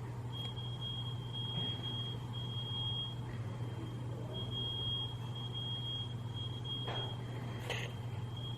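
Smoke alarm in the apartment next door sounding through the wall: a high-pitched beep repeating in groups, with a longer pause about three seconds in, set off by the neighbours' cooking or smoking.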